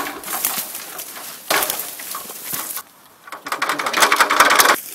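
Close rustling and crackling of a coiled climbing rope and jacket fabric being handled against the microphone, in three bursts, loudest near the end.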